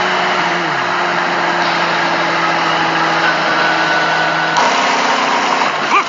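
Big-rig truck engine running steadily under road noise, with a continuous hum; the note shifts lower about four and a half seconds in.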